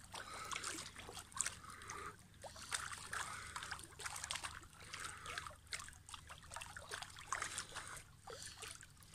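Pool water splashing and trickling as arms scissor up and down just under the surface, in irregular small splashes.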